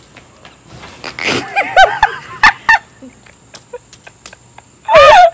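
High-pitched squealing laughter or shrieks from a person. A run of short squeals comes about a second in, and a loud shriek near the end.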